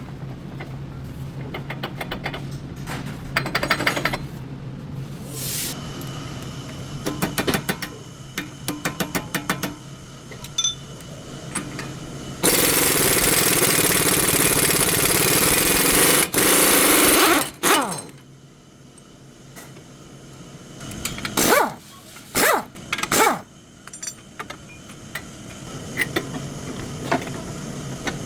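Workshop repair noise: a string of metal clanks and knocks over a low steady hum, broken by a loud hissing rush that lasts about five seconds in the middle.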